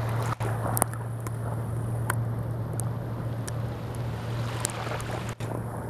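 Steady low drone of a motorboat's engine out on the river, with wind noise on the microphone and a few sharp clicks.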